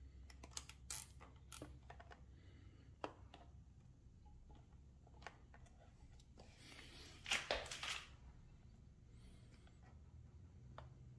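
Nylon cable tie clicking as it is handled and threaded around coiled electrical wires, then ratcheting in a short rasping burst as it is pulled tight about seven seconds in.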